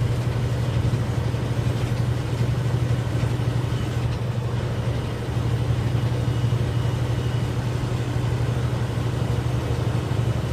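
Semi truck's diesel engine and road noise heard from inside the cab while driving, a steady low drone with a slight dip in level about five seconds in.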